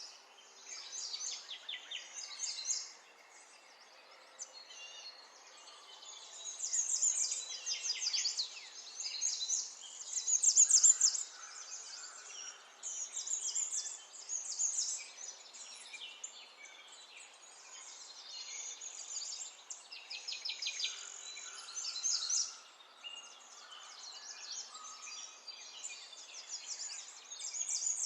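Small birds singing in short repeated chirping trills, one phrase after another, over a faint steady background hiss.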